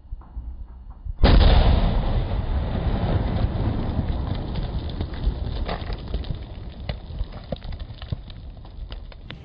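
Explosive charge blasting a large boulder apart about a second in: one sudden loud blast, followed by several seconds of rushing noise with scattered knocks of rock fragments falling and landing, slowly fading.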